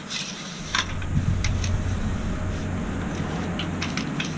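Scattered metal clicks and knocks as a camper awning's support leg is handled and set, over a low steady rumble that starts about half a second in.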